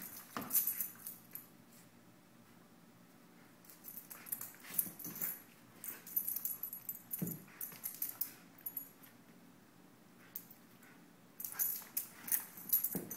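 Labradoodle's claws clicking and scrabbling on a hardwood floor as it moves about, with a metallic jingle like collar tags, coming in bursts with quieter pauses between.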